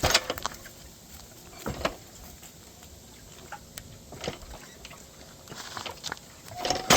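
Scattered clicks, taps and clatter of metal parts and tools being handled while working on a mini bike's brake, with a sharp knock that rings briefly near the end.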